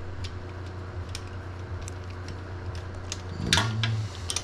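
Light metallic clicks and handling sounds as a pit bike's oil drain plug is put back and threaded in by hand, over a steady low hum. A brief louder scrape comes about three and a half seconds in.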